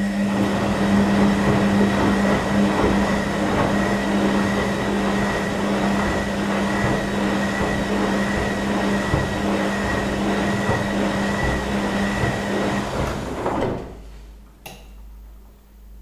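Beko WKB 61022 front-loading washing machine in its rinse stage: the drum motor hums steadily while the wet laundry tumbles and sloshes in the drum. The drum stops about three-quarters of the way through, and a single click follows shortly after.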